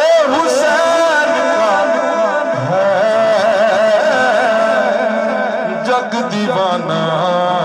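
A man singing a manqabat in praise of Hussain into a microphone through a PA system: a long, ornamented melodic line of held, wavering notes with no words picked out. A lower steady tone joins beneath the voice about two and a half seconds in.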